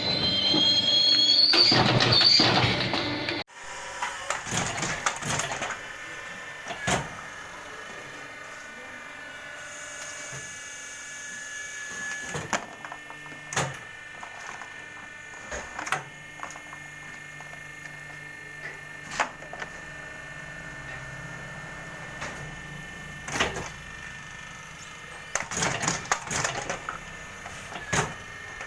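Automatic gallon-cap moulding machine running: a loud hiss with a rising whine for the first few seconds ends abruptly. Then comes a steady hum with sharp clicks and knocks from the machine's mechanism every one to three seconds.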